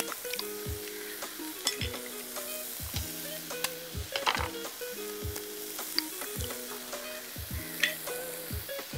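Chopped vegetables frying in hot oil in a pan, with a steady sizzle, under background music with a regular beat.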